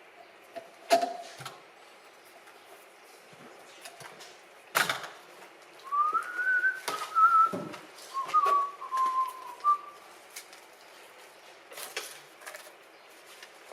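A person whistling a few short wavering notes, with several sharp knocks around it.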